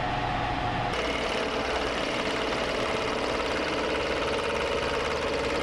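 Milling machine cutter cutting metal: a steady, loud machining whine with a fast chattering texture. About a second in the pitch of the whine changes abruptly as the cut switches to another machining shot.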